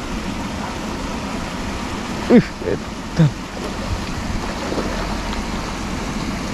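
Steady rush of water spilling over a low weir. Two or three brief calls falling in pitch stand out, about two and three seconds in.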